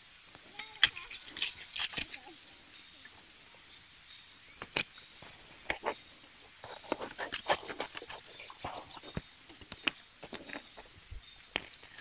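A knife cutting open and gutting a curimatã fish laid on a wooden paddle blade: scattered small clicks and scrapes, busiest around the middle. A faint steady high insect hiss sits underneath.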